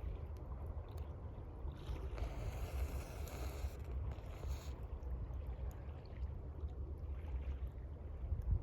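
Campfire crackling over gently lapping water, with a steady low rumble beneath and a louder hissing rush lasting a few seconds, starting about two seconds in.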